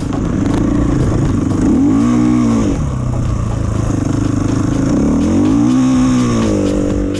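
450cc enduro motorcycle engine under way at speed, revving up and back down twice, about two seconds in and again near six seconds.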